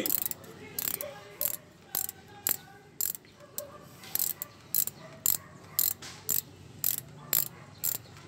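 Ratchet wrench clicking in short bursts about twice a second, its pawl ticking on each back-swing as a bolt on the motorcycle's kickstarter is turned.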